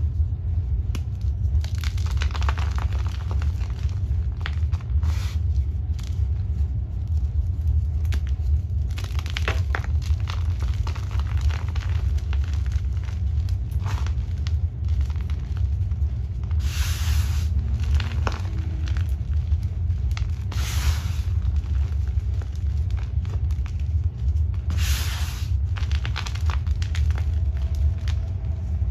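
A block of magnesium gym chalk coated in holi powder and glitter being crushed and crumbled by hand: crunching and powdery crumbling in separate bursts. A steady low rumble runs under it.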